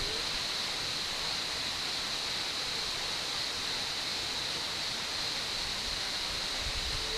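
Waterfall's falling water, a steady, even rush.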